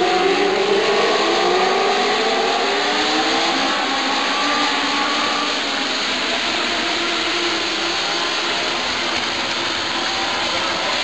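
A field of Legend race cars with small motorcycle engines running at speed on a short oval. Several engine notes fall in pitch over the first five seconds or so, then blend into a steady mixed engine noise.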